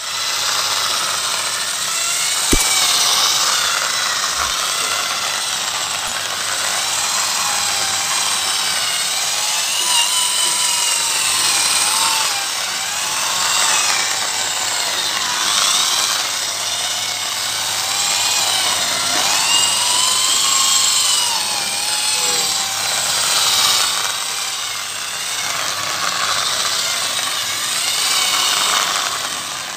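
Handheld electric drill spinning a sponge scrubbing pad over fabric sofa upholstery: a continuous motor whine whose pitch wavers up and down, over a steady scrubbing hiss of the pad on the cloth.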